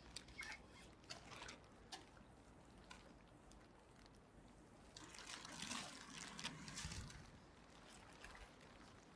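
Faint trickling and splashing of water, loudest for a couple of seconds around the middle, with a few light clicks and knocks near the start.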